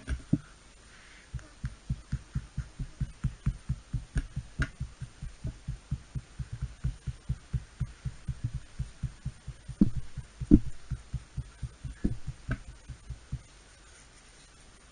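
Dull, rapid thumps, about four a second, of a toothbrush being tapped into a soft clay roll lying on a towel-covered table, stippling a sponge-cake texture into its surface. There are a couple of louder knocks about ten seconds in, and the tapping stops a little before the end.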